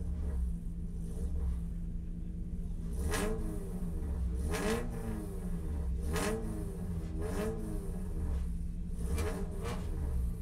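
Spec Miata race car's engine running, heard from inside the car. It has a steady low drone, and from about three seconds in a sound rises and falls in pitch roughly every second and a half, with a short sharp noise at each peak.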